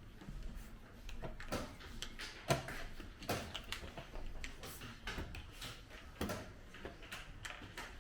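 Light clicks and taps at irregular intervals, roughly one or two a second, from play at a checkers board in a small room.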